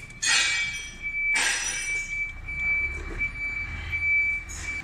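Aluminium air-compressor cylinder head being shifted into place on its block: two short scraping rasps in the first two seconds. A steady high-pitched whine runs underneath throughout.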